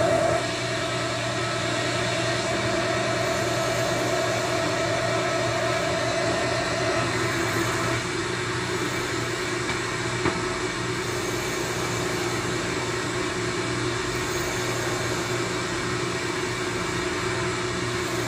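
One-transistor regenerative radio receiver hissing through its speaker while being tuned, with a low steady hum. A steady mid-pitched whistle sounds over the hiss and drops out about seven seconds in.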